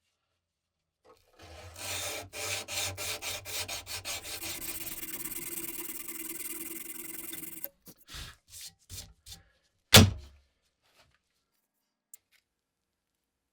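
Abrasive rubbing on wood: quick rubbing strokes that merge into a steady scrape for several seconds, then a few short strokes and a single loud knock about ten seconds in.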